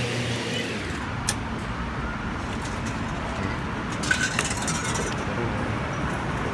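BTS Skytrain ticket vending machine finishing a sale over steady station ambience: a sharp click about a second in, then a cluster of clicks and clinks with a short beep about four seconds in as the machine dispenses the ticket.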